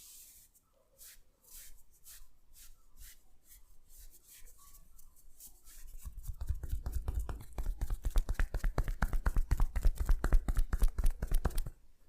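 Massage hands tapping on the body in a fast, even rhythm, about seven dull slaps a second, getting louder and then stopping suddenly near the end. Before the tapping starts there are scattered light clicks and handling sounds.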